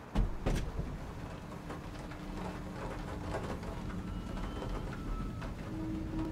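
Rain falling, with scattered drops tapping and two louder knocks right at the start. A few faint held tones sound under it.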